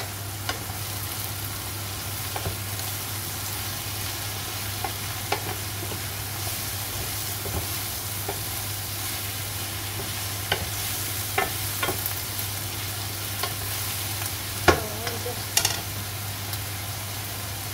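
Sliced aubergine and mushrooms sizzling steadily in a frying pan, stirred with a wooden spatula that clicks and knocks against the pan now and then, loudest about three quarters of the way through.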